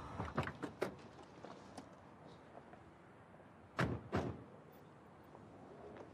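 Car door clunks: a few light clicks near the start, then two heavy thuds close together about four seconds in as the SUV's door is opened and shut.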